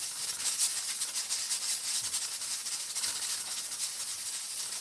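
Pressure cooker's weighted valve rattling rapidly and steadily while steam hisses out: the cooker is at full pressure over the gas flame.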